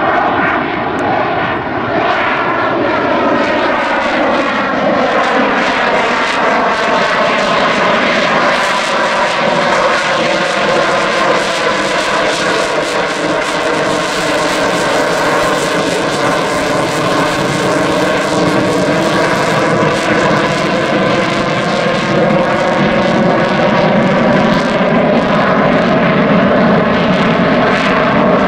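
An F-22 Raptor's twin Pratt & Whitney F119 afterburning turbofans running loud and continuous during a low display pass. The tone slowly sweeps and bends as the jet moves across the sky, and it grows a little louder toward the end with the afterburners lit.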